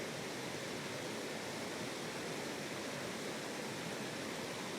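Small mountain creek running, a steady even rush of water.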